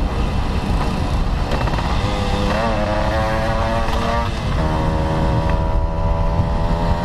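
Old underbone motorcycle's engine running under way, its pitch rising as it pulls harder a little past halfway, then holding steady. Wind noise rumbles on the microphone.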